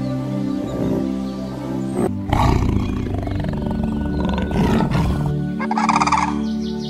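Background music with steady held tones. About two seconds in, a white tiger gives a low roar lasting about three seconds. Near the end a bird gives a short, rapidly pulsing call.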